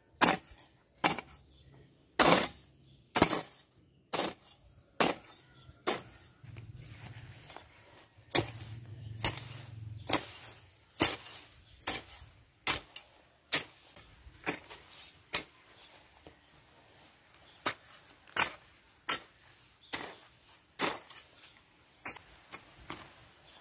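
A steel hoe chopping into dry soil again and again, about one strike a second, as earth is drawn up around the base of a young banana plant.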